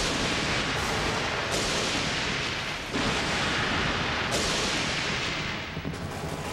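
A sudden thunderclap over steady heavy rain, with a second clap of thunder about three seconds in.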